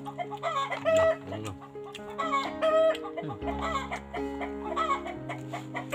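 Chicken clucking, short calls repeating every second or so, over background music with held low notes.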